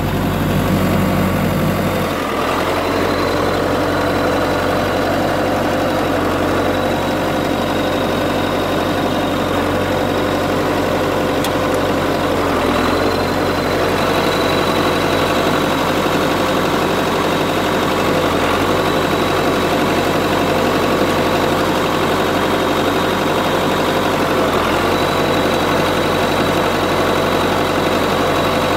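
John Deere 450C crawler's diesel engine running steadily, its note changing briefly a few times as the transmission is shifted during a pressure test.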